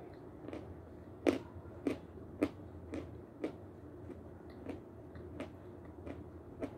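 Crisp crunching bites of Severski edible chalk being chewed close to the microphone, a string of sharp crunches about two a second, loudest a little over a second in.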